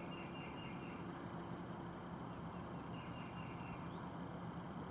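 Quiet outdoor background with faint high chirping trills, one at the start and another about three seconds in, over a steady low hum.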